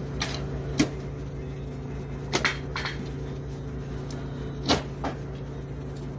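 Scattered sharp clicks and knocks, about seven in six seconds, of small parts and hand tools being handled during snowblower carburetor reassembly, over a steady low hum.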